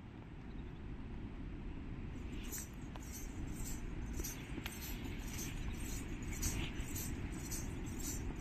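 Small bells jingling in a steady rhythm about twice a second, in step with walking, starting about two seconds in, over a steady low rumble.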